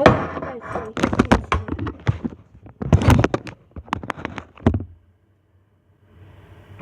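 Kitchenware clattering while a bowl is emptied into a cooking pot: a quick, irregular run of knocks and taps, as of the bowl and a utensil striking the pot, that stops about five seconds in.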